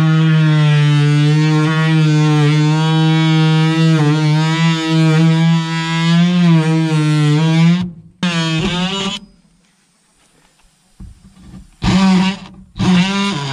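Cordless DeWalt XR oscillating multi-tool with a plunge-cut blade cutting into wooden siding boards: a loud, steady buzz whose pitch wavers slightly with the load. It stops about eight seconds in, gives a short burst, goes near silent for a couple of seconds, and starts up again near the end.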